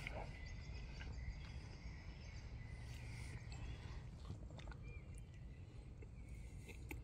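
Quiet forest ambience: a steady low rumble with a few faint, short high chirps and soft clicks.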